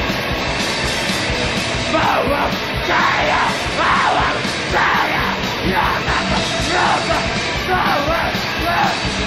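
Distorted hardcore punk played by guitar, bass and drums under a wall of harsh noise. Shouted vocals come in about two seconds in, in short bursts roughly once a second.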